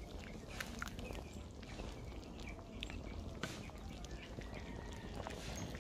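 Faint outdoor ambience: scattered small clicks and short chirps over a steady low rumble.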